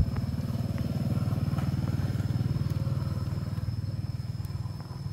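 Motorcycle engine passing on the road, a low pulsing rumble that swells and then fades away. A sharp click sounds right at the start.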